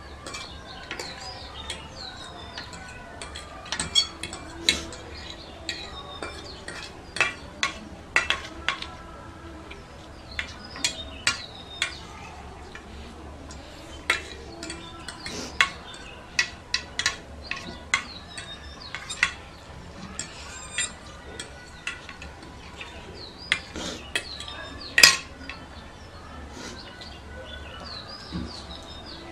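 Metal forks clinking and scraping on plates as two people eat noodles, in irregular sharp clicks with one louder clack near the end.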